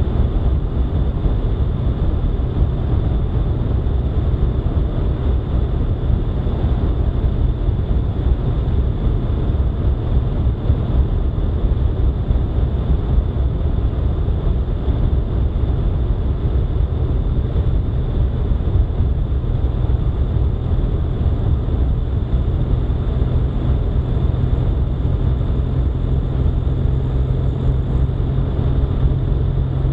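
Steady low rumble of a vehicle driving at road speed, with tyre and wind noise, and a steady low hum that grows stronger over the last few seconds.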